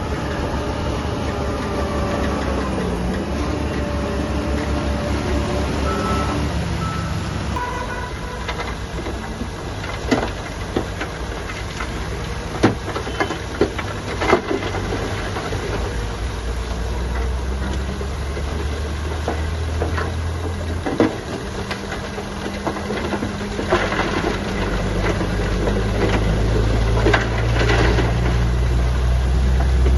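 Diesel engines of heavy construction machinery running, with a run of sharp clanks in the middle. The engine noise builds louder toward the end.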